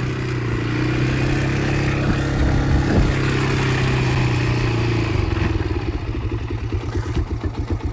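Honda 300EX ATV's single-cylinder four-stroke engine running, just brought back to life after sitting. It holds a steady fast idle, then about five seconds in drops to a slow, lumpy idle with distinct firing pulses.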